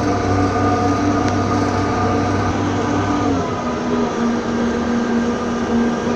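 Tractor engine running steadily while working a field with a cultivator. About three and a half seconds in, its note drops to a lower pitch and the deep hum fades.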